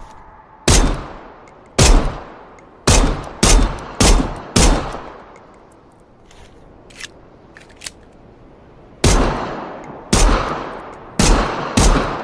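Glock pistol firing single shots, each report trailing off in an echo: six shots at uneven spacing, a pause of about four seconds with two faint clicks, then five more shots in quicker succession.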